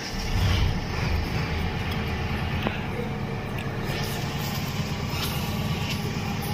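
Potter's wheel spinning while wet clay is thrown on it: a steady low mechanical rumble.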